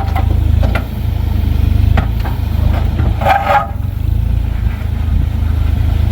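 Engine of an earth-moving machine running steadily while stones are cleared, with a few sharp knocks and a short clatter about halfway through.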